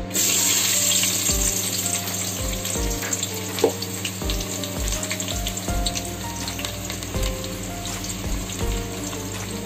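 Sliced onions hitting hot oil in a metal pot: a sudden loud sizzle the moment they go in, settling into steady frying, with one sharp clink about three and a half seconds in.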